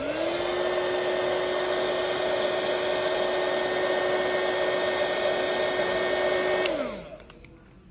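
Hot air gun switched on with a click, its fan motor spinning up quickly to a steady whine over loud rushing air, running for about seven seconds, then switched off with a click and winding down.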